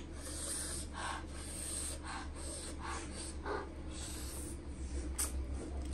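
A person slurping spicy instant noodles from a fork, a run of short sucking slurps.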